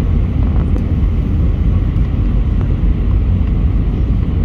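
Steady low rumble inside the cabin of an Airbus A321 on its landing approach: engine and airflow noise heard from a window seat.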